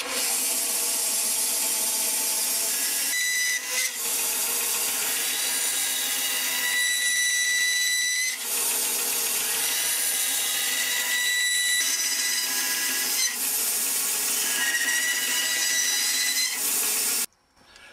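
Record Power bandsaw starting up and running steadily while its blade cuts a series of short kerfs into a limewood blank. A high whine comes and goes with the cuts, there are a few brief dips, and the sound stops suddenly near the end.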